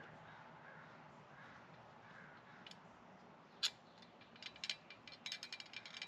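Small metal fastener hardware clicking: one sharp click about three and a half seconds in, then a quick, uneven run of light ticks as a bolt, lock washer and nut are worked onto a magnet and folding shelf bracket.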